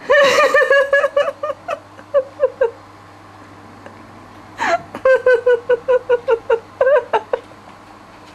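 A person giggling in two bouts of rapid, high-pitched laughter pulses, the second starting about halfway through.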